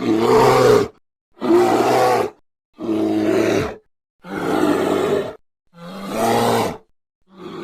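Designed Carnotaurus dinosaur sound effects: a run of six short roars, each about a second long, with brief silences between them.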